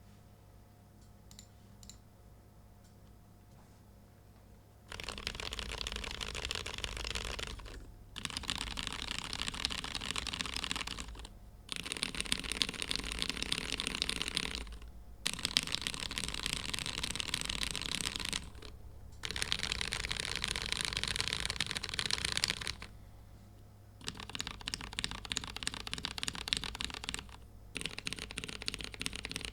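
Fast typing on a Womier/Gamakay K87 mechanical keyboard with lubed, filmed Cherry MX Black Hyperglide linear switches and POM keycaps. After a few seconds with only a few light clicks, the typing comes in runs of several seconds with brief pauses between them.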